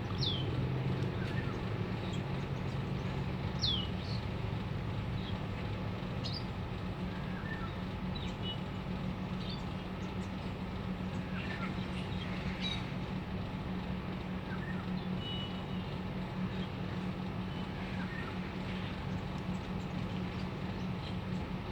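Small birds giving scattered short, high chirps that slide downward in pitch, a dozen or so spread irregularly, over a steady low hum.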